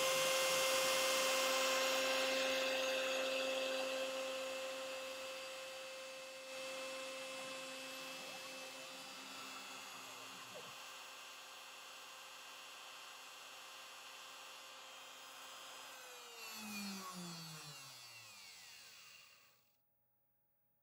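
CNC router spindle motor running a slab-flattening pass with a surfacing bit, a steady whine that fades somewhat over the first several seconds. About sixteen seconds in the pitch falls as the motor winds down, and the sound stops a few seconds later.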